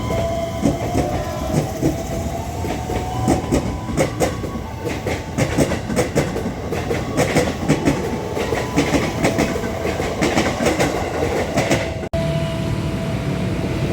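Electric commuter train of the JR East 205 series running past, its wheels clicking rapidly over the rail joints over a steady running hum and a held whine.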